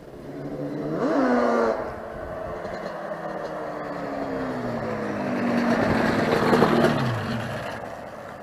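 Yamaha Banshee 350's two-stroke twin, fitted with Paul Turner midrange expansion chambers and Fatboy silencers, revving. The pitch jumps up sharply about a second in, then falls slowly over several seconds as the sound swells and then fades near the end.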